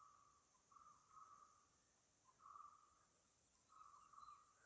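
Faint forest insect chorus: a steady high-pitched trill, with a lower trill that starts and stops several times.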